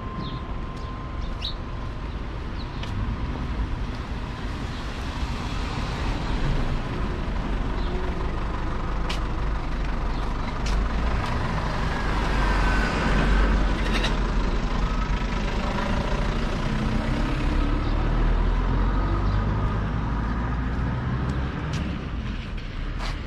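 An SUV driving up and passing close by, its engine and tyres loudest about twelve to fourteen seconds in, over a steady low street rumble.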